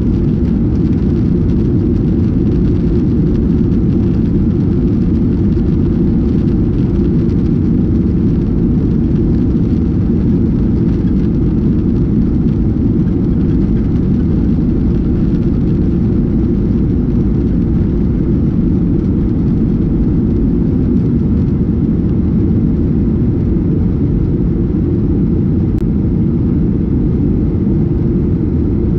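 Cabin noise of a Boeing 737-800 in flight, heard from a window seat behind the wing: the CFM56-7B engines and the airflow past the fuselage make a deep, steady rumble that does not change.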